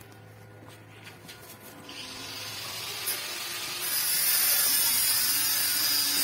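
Stick-welding arc from a Bossweld 230-amp inverter welder, crackling and hissing as a tack weld is laid on a steel die block. It starts about two seconds in, grows louder and is steady from about four seconds.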